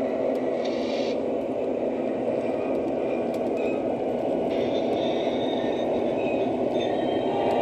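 Lionel O-gauge Union Pacific passenger cars rolling along the track, their wheels making a steady rumble, with fainter higher rattles coming and going.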